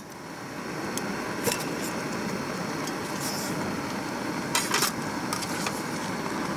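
Canister gas stove burning steadily under a lidded aluminium pot that is being brought to a simmer, with a few light metal clinks from the cookware, the loudest pair about two-thirds of the way through.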